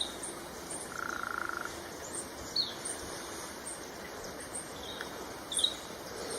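Outdoor nature ambience with scattered short, high bird chirps, the clearest about two and a half and five and a half seconds in, and a brief buzzy trill about a second in, over a faint steady hiss.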